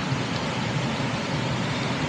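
Steady rushing of a fast, turbulent mountain river.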